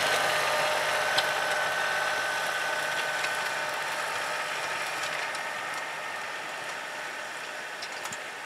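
John Deere compact tractor's diesel engine running steadily with a constant high whine, slowly fading as the tractor drives away.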